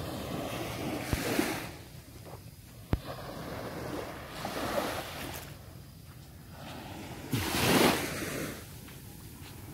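Sea waves washing in and breaking, rising and falling in surges, with the biggest surge about eight seconds in. Wind buffets the microphone, and there are a few sharp knocks in the first three seconds.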